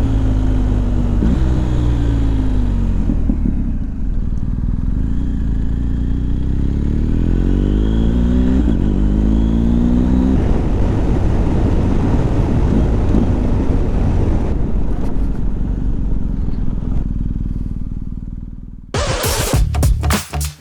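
BMW R 1250 GS Adventure's boxer-twin engine on the move: it slows at first, then accelerates hard through two gears, the pitch rising, dropping at the upshift and rising again, before running on steadily. Near the end the engine fades out and music with a beat starts.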